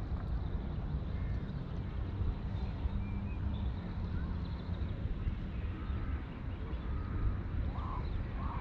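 Steady low wind rumble on the microphone, with faint short bird calls now and then, a couple of them about two-thirds of the way through.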